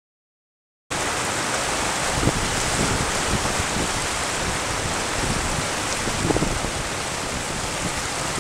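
Surf breaking and washing over shore rocks: a steady rushing of seawater that starts suddenly about a second in, after silence.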